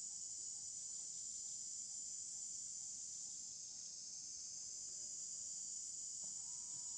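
A steady, high-pitched chorus of insects shrilling without a break.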